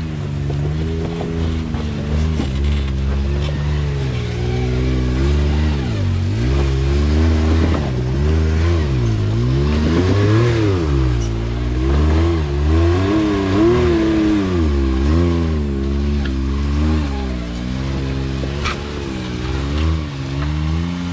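Side-by-side UTV engine revving up and down over and over as the throttle is worked on and off.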